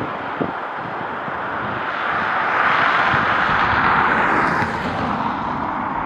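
Jet airliner engine noise, a broad rushing sound that swells to a peak a few seconds in and then eases off as the aircraft passes.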